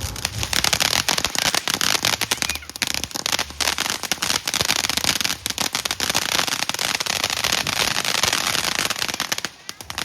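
A consumer firework going off with a dense, rapid crackle of sharp pops that runs for about nine and a half seconds, then dies away.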